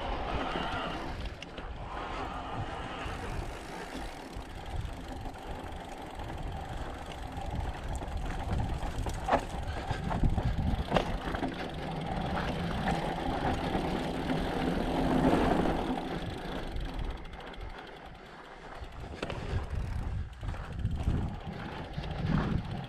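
Mountain bike being ridden: a steady rumble of tyres and rattling bike parts, with a couple of sharp knocks about halfway through.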